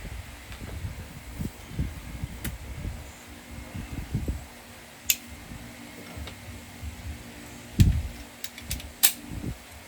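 Scattered clicks and knocks of a wrench and metal parts being handled while a 10 mm bolt on a diesel generator's fuel filter is worked loose, the sharpest clicks near the end. A faint steady hum runs underneath.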